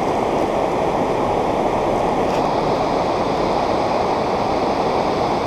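Floodwater of the river Lomme in spate, rushing steadily and loudly below.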